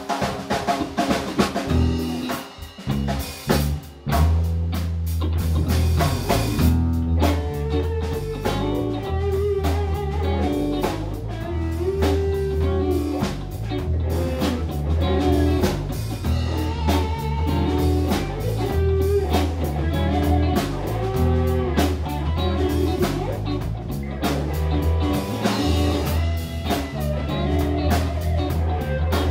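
Live band playing an instrumental number on electric guitars, bass guitar and drum kit; the drums are prominent for the first few seconds, then the full band with a strong bass line comes in about four seconds in.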